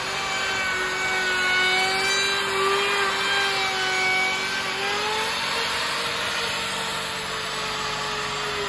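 High-speed handheld power tool cutting and shaping wood: a steady motor whine that sags and rises a little in pitch as it bites, over a rough hiss of cutting.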